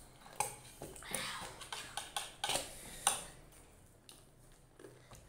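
Scattered clicks and taps of plates on a glass tabletop as noodles are eaten by hand, with short breaths and brief voice sounds in between.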